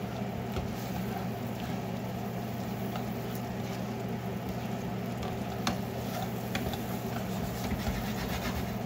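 Chicken and vegetable stir fry sizzling and bubbling in a skillet as its soy-honey sauce boils with cornstarch thickener, thickening to a glossy coat; metal tongs stir through it and click against the pan now and then. A steady low hum runs underneath.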